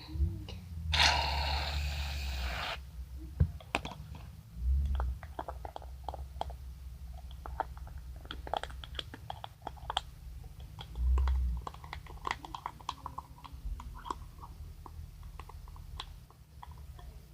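Homemade slime being stirred and squished in a cup, making many small wet clicks and crackles. A brief loud hiss comes about a second in, with a few dull handling thumps.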